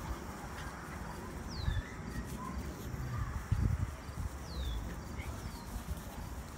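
Outdoor back-yard sound: a low rumble with soft thumps, and a bird in the background giving short falling whistled chirps three times.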